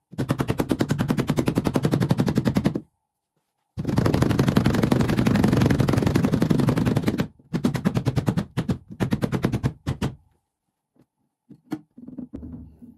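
Rapid hand slaps on a car's rear window glass, beating it down into its rubber seal: two long fast runs of knocks, then a few shorter bursts that stop about ten seconds in.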